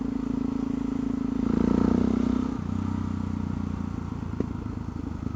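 Yamaha XT660X's single-cylinder four-stroke engine running while the bike rides along, heard from the rider's helmet; the engine note swells for about a second, starting a second and a half in, then settles back to a steady run.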